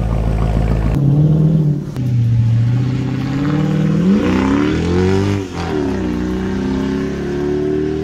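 Mercedes-Benz E55 AMG's 5.4-litre M113 V8 running, first a deep steady note, then the car accelerating, with revs rising, dipping and climbing again. The engine has fresh fuel injector O-rings, its misfire cured.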